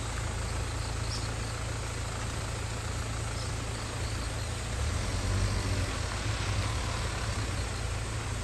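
Steady insect chorus over a low rumble, which swells a little about five seconds in.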